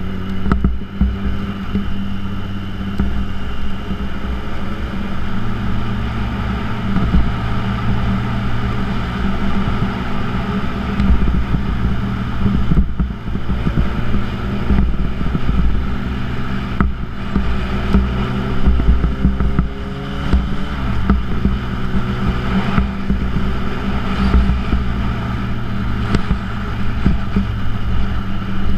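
2006 Yamaha YZF-R1's inline-four engine through a Yoshimura titanium exhaust, running steadily at road speed. Its pitch rises and falls a few times in the middle with the throttle, over a steady rush of wind.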